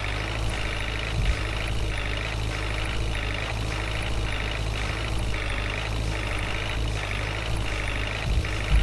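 Heavy vehicle engine running steadily with a reversing alarm beeping about twice a second.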